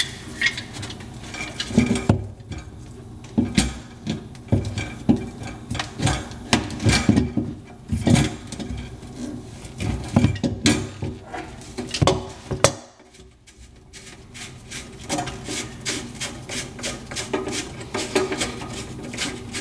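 Channel-lock pliers and the metal pop-up drain nut and rod being worked under a bathroom sink: irregular clicks, clinks and knocks of tool on metal parts, with a short lull about thirteen seconds in.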